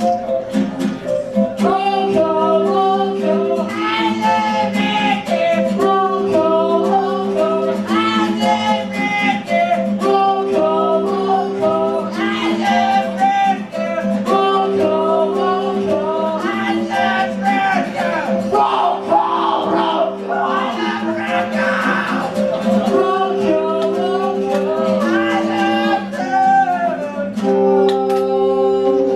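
A small band playing a song, with held guitar chords under a singing voice.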